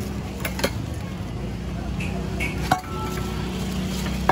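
Food-stall clatter: a few sharp clinks of utensils and containers over a steady low hum.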